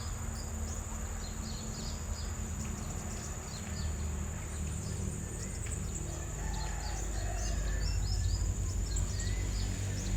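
Blue-crowned hanging parrot (serindit) giving rapid strings of short, high-pitched, downward-sliding chirps, over a steady high hiss and a low rumble that grows louder near the end.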